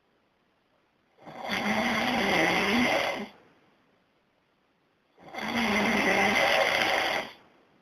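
A person snoring loudly: two long snores, each about two seconds with a wavering pitch, about four seconds apart.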